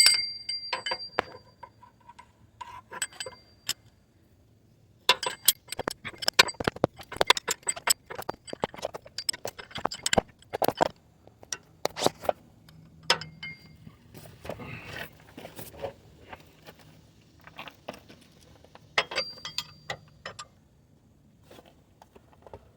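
Metal clinks, clicks and scrapes of a box-end wrench being worked on the idler pulley bolt as it is tightened. There is a sharp ringing clink at the start, then bursts of quick clicking separated by short pauses.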